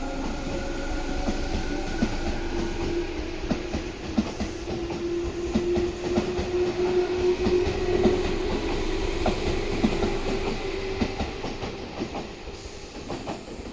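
Tobu 10030 series eight-car electric train pulling away from a station: traction motors humming, a little higher in pitch as it picks up speed, with wheels clacking over rail joints. It fades somewhat near the end as the train moves off.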